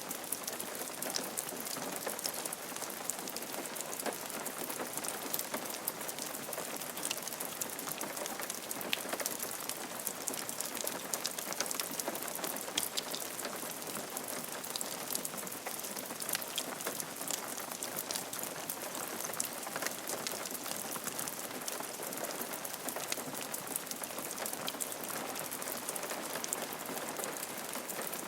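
Steady rain falling on a roof, a continuous patter with many individual drops ticking sharply.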